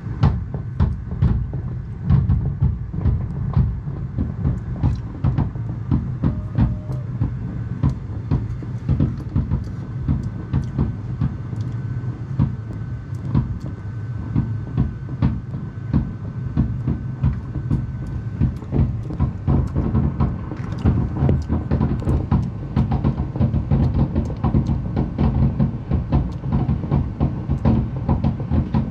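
Fireworks finale: a rapid, unbroken barrage of shell bursts, booms and cracks overlapping so closely that they run together into a continuous rumble.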